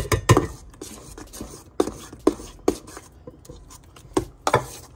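A kitchen utensil knocking and clicking against a mixing dish as the masa is stirred: sharp, irregular knocks about two a second, loudest at the start.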